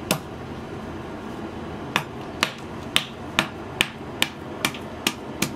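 Ginger being smashed with a heavy tool on a wooden chopping board: sharp knocks, one at the start, then after a pause of nearly two seconds a steady run of about two a second.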